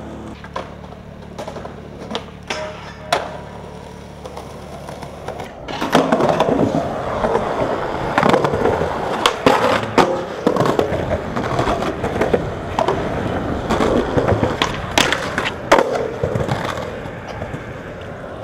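Skateboard rolling on concrete, the wheels rumbling, with sharp clacks of the board popping and landing. For the first few seconds there are only a few scattered clicks over a low steady hum.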